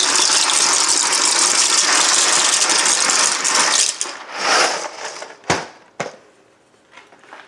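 Dry medium pasta shells pouring from a cardboard box into a slow cooker, a loud continuous rattle for about four seconds with a last shake soon after. Then two sharp knocks.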